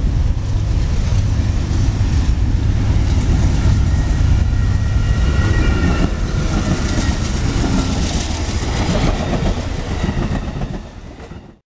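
A train rolling past on the rails with a steady low rumble and faint high squeals midway, tapering off and cutting out near the end.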